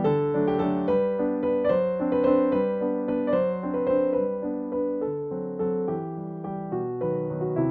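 Background keyboard music: a melody of held notes.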